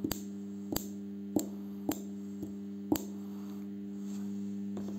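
Spot welder built from a microwave oven transformer humming steadily while energised, with a sharp snap each time its copper electrodes weld a metal strip onto a lithium-ion cell, about six welds at uneven intervals.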